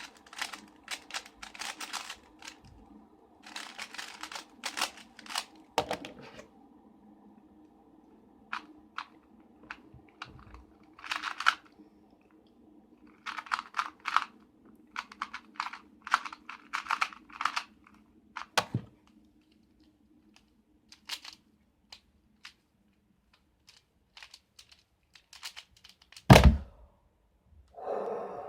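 Plastic twisty puzzle cubes being turned fast in bursts of quick clicking clatter, with a steady low hum underneath from a spinning fidget spinner that dies away about two-thirds of the way through. A loud thump near the end.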